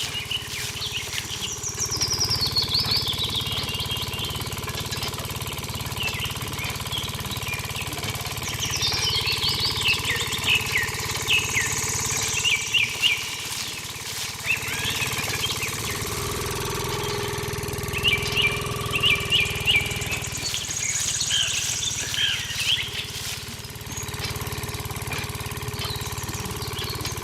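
Birds chirping and twittering over the steady low hum of a small engine running. The hum fades for a few seconds in the middle, then comes back.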